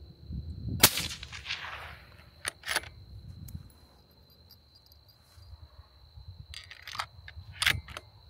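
A single shot from a suppressed 6.5 Creedmoor bolt-action rifle with a SilencerCo Harvester Evo suppressor, a sharp crack about a second in with an echo that dies away over about a second, measured at 135.5 dB(A) at the shooter's ear. The bolt is then worked, with two sharp clicks near three seconds in and several more near the end.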